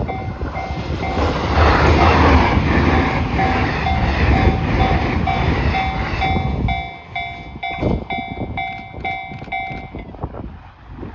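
E653 series electric train passing over a level crossing, with a loud rush of wheel and body noise that falls away after about six and a half seconds into sharp wheel clacks over the rail joints. Throughout, the Japanese level-crossing warning bell dings about twice a second, stopping near the end.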